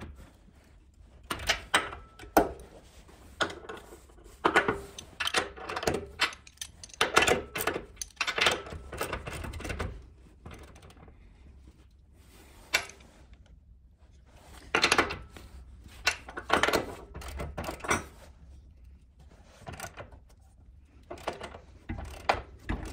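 Socket ratchet clicking in quick spells as it snugs down the nuts on a bench vise's half-inch mounting bolts under a wooden workbench, with knocks of the tools against the bench. There are three spells of work, with a pause of a few seconds in the middle.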